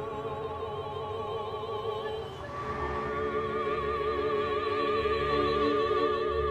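Operatic singing: a voice holds long notes with a wide vibrato and moves to a new note about two and a half seconds in.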